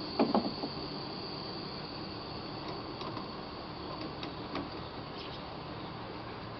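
Canister gas stove burner hissing steadily, with two loud knocks about a quarter second in and a few light metallic clicks later as the thermoelectric charger is picked up and set down on the burner.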